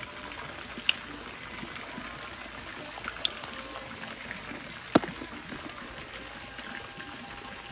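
Steady trickling of running water, with a few sharp clicks over it, the loudest about five seconds in.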